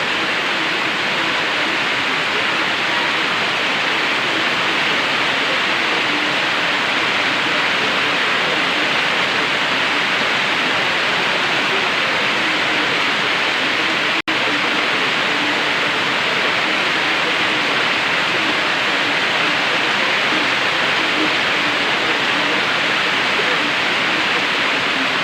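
Heavy rain from a tropical storm falling steadily, an even hiss. It drops out for an instant near the middle.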